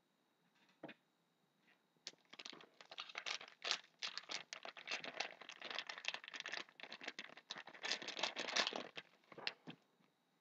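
A trading card pack's wrapper being torn open and crinkled: a dense run of crackling from about two seconds in until shortly before the end, after a couple of faint clicks.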